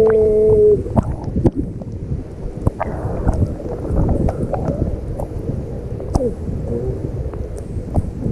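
Wind buffeting the microphone by the sea, with scattered knocks and clicks. A held, pitched call sounds at the very start and stops under a second in.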